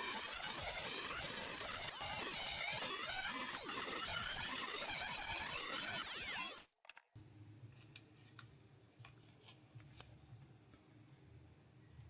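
Micro rotary tool grinding away the deformed plastic of the 3D printer's fan housing where the fan blade rubs, a dense scraping whine with shifting pitch. It stops abruptly about seven seconds in, leaving a faint low hum and a few light clicks.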